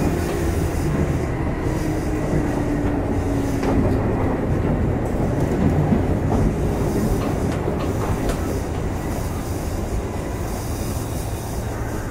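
Running noise heard aboard the motor car of a Kintetsu 2610 series electric train: a steady rumble of wheels on rail with clicking over the rail joints. A motor whine falls in pitch over the first few seconds and the noise eases toward the end as the train slows.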